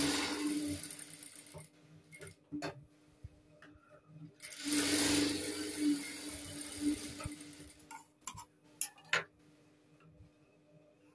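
Industrial lockstitch sewing machine stitching a dart in a blouse cup, in two short runs: one in the first second and one from about four and a half to seven seconds in, with its motor humming steadily in between. A few sharp clicks follow near the end as the cloth is taken out.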